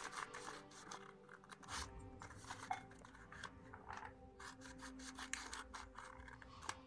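Scissors cutting slits into a stiff paper circle: a run of short, uneven snipping strokes.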